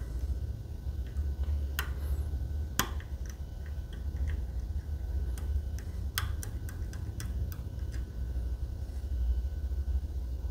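Lock pick and tension wrench working the pins of a Medeco cylinder: scattered sharp metallic ticks, a cluster of them from about five to eight seconds in, over a steady low rumble.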